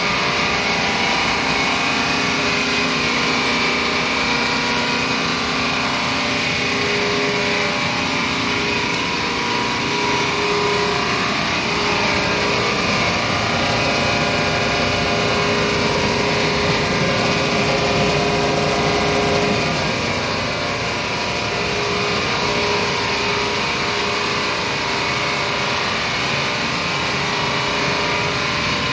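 GMK RECO130 dry wire chopper, a scrap-wire granulator with built-in density separator, running steadily while processing wire: a continuous loud machine drone with several steady tones over a broad rushing noise.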